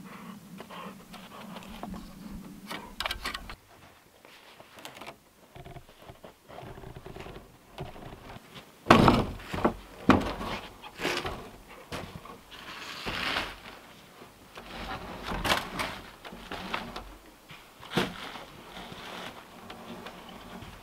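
Peeled logs knocking and scraping against each other as a log is worked up onto the top of a log wall: a series of sharp wooden thunks, the loudest near the middle, with handling noise between them.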